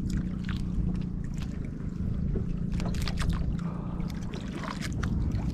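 Outrigger boat's engine running steadily with a low hum, under scattered small splashes and knocks as a hooked fish is brought up against the hull.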